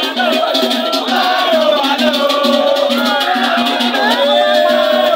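Shaker rattles keeping a fast, even beat under several voices singing and chanting, live masquerade dance music amid a crowd.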